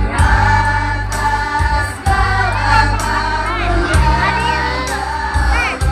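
School choir singing a song in unison over instrumental accompaniment with a steady bass line.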